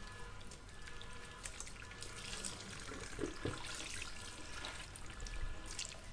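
Water from a salon backwash sink's handheld shower sprayer running over wet hair and splashing into the basin, with uneven spatters as the stream shifts.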